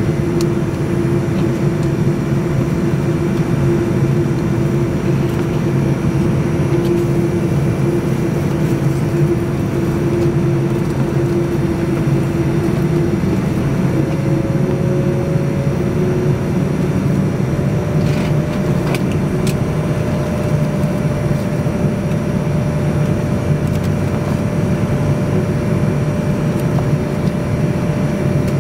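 Boeing 787-9 cabin noise while taxiing, heard from a window seat over the wing: a steady engine and air-system hum. A held tone in it fades a little before halfway, and a slightly higher tone takes over. A few faint clicks come about two-thirds of the way through.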